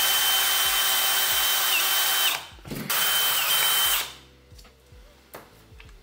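Cordless drill boring into the thin copper secondary winding of a microwave oven transformer: two runs, about two seconds and then about a second and a half, a steady motor whine over a grinding noise. Quieter knocks follow in the last two seconds.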